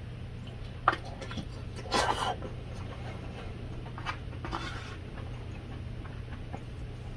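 Close-miked eating: chewing and mouth sounds with clicks and scrapes of a spoon in a plastic takeout tray, a sharp click about a second in and a louder cluster around two seconds, over a steady low hum.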